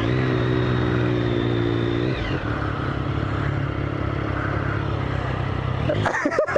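Triumph 1050 inline-triple motorcycle engine pulling under throttle while riding, its pitch held steady for about two seconds and then dropping sharply, after which it runs on steadily under wind and road noise.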